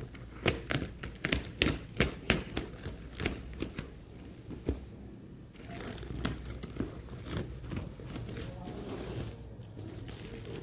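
Scissors cutting through black plastic wrapping on a shipping box, the plastic crinkling and rustling. There is a quick run of snips over the first few seconds, then fewer, scattered cuts.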